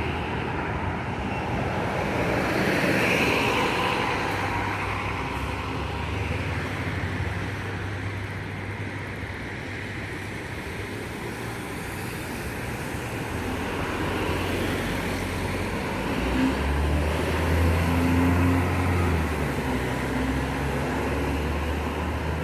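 A bus engine running amid road traffic noise, its low drone growing louder about two thirds of the way through as the bus draws close or pulls away.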